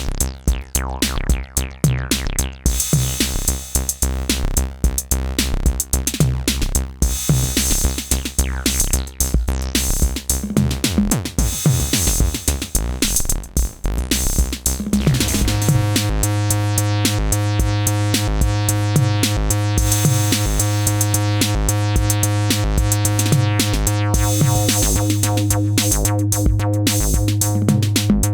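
Acid bassline sequenced on an Elektron groovebox over a drum machine beat. Between about 10 and 15 seconds in, the sound sweeps up and down in pitch, then a steadier, denser bass pattern carries on to the end.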